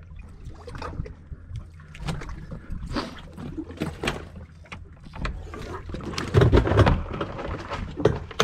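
Irregular knocks and scuffs as a freshly caught false albacore is handled on a boat's deck, with a louder cluster of knocks a little past halfway.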